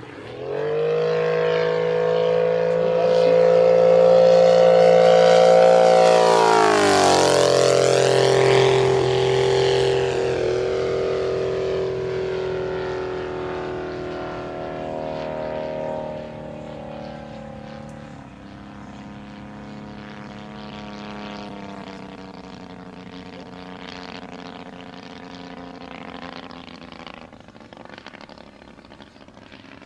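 Three-cylinder four-stroke KOLM IL 200 engine of a giant-scale RC Messerschmitt Bf-109 running steadily as the model flies past. The sound swells and its pitch drops about seven seconds in as the plane passes, then fades slowly as it flies away.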